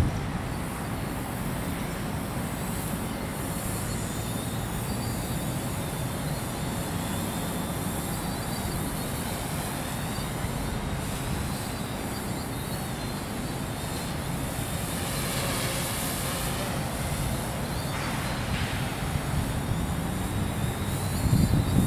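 Wind buffeting the microphone in a steady low rumble, with the faint, wavering whine of a DJI F450 quadcopter's E300 motors and propellers changing speed as it flies.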